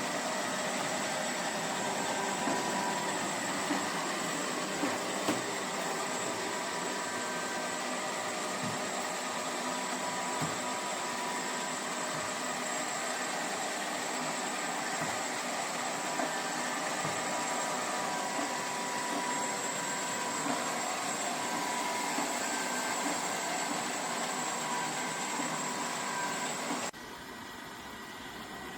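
A steady machine noise, rushing air with a steady high whine, that drops off abruptly near the end.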